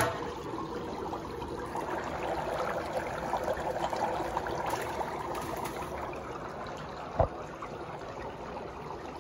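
Dry ice bubbling steadily in a pot of hot water as it sublimates, with a single knock about seven seconds in.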